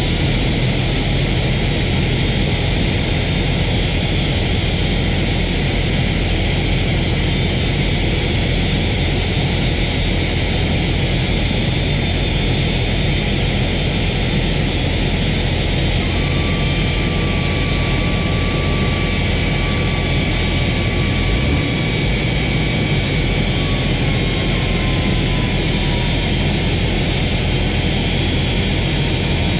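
Steady, loud noise of an Airbus A380's jet engines running, heard from the pushback tug under the nose gear. About halfway through, a thin whine sets in, holds for several seconds, then slides down in pitch.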